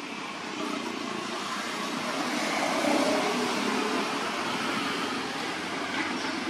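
A motor vehicle passing by, its steady noise swelling to its loudest about three seconds in and then fading.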